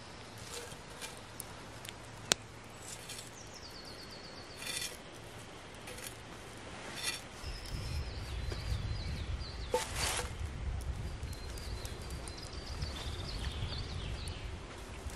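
Songbirds singing short falling phrases, with scattered small clicks and knocks. A low rumble comes in about halfway through.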